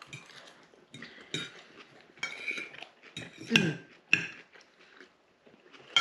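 Cutlery clinking and scraping against bowls while salad is eaten, a handful of separate clatters, the loudest about three and a half seconds in.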